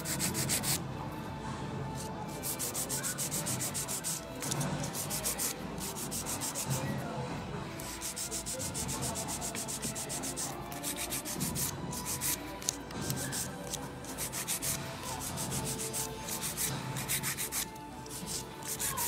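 Hand emery board filing long acrylic stiletto nails. The file rasps back and forth in quick strokes, several a second, in runs of a second or two with short pauses between them.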